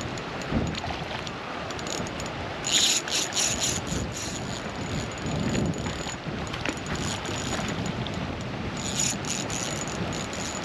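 Fishing reel clicking in two rapid bursts, about three seconds in and again near the end, while a hooked trout is being brought in, over a steady rushing background.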